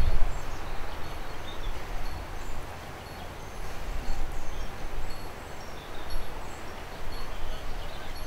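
Outdoor garden ambience: a low steady rumble with faint, scattered high-pitched bird chirps.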